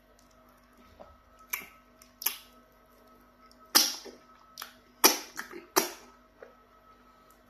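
Mouth and lip smacks of someone eating fufu with okra soup by hand, close to the microphone: a string of about eight sharp, wet smacks, most of them in the second half.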